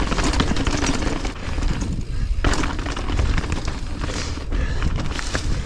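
Mountain bike ridden fast down a dirt trail, heard from a helmet camera: wind rumbling on the microphone, tyres on dirt and dry leaves, and the bike rattling and clattering over bumps in a quick run of knocks.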